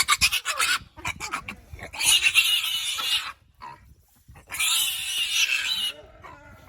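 Pig squealing: two long, loud squeals, one about two seconds in and one about four and a half seconds in, with a short pause between them and shorter sounds before them.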